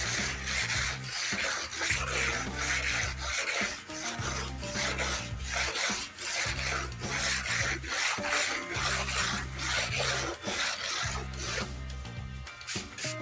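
A metal putty knife scraping and rubbing across wet texture paint on a wall in repeated strokes, over background music.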